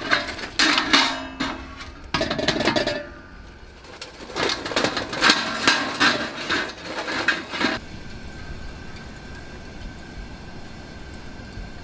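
Metal charcoal chimney starter clanking against a kettle grill as glowing charcoal is tipped out onto the grate, in two spells of clattering metal-and-charcoal knocks. After that only a low steady hiss remains.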